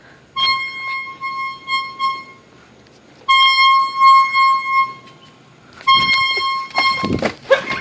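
Unexplained trumpet-like horn tone in the air, the so-called sky trumpets: three long, steady blasts on one high pitch, each one to two seconds long, with short quiet gaps between them.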